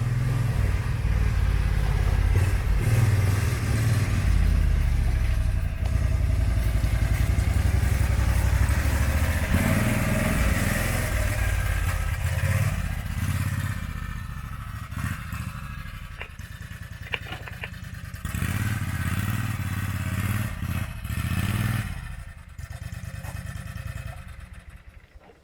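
Small engine running, its level rising and falling, loud through the first half and easing off later, with a few clattering knocks partway through.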